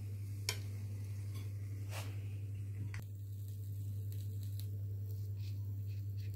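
Steady low hum with a sharp click about half a second in and lighter clicks near two and three seconds, as the lid of an electric contact grill is handled and lifted off a toasting wrap.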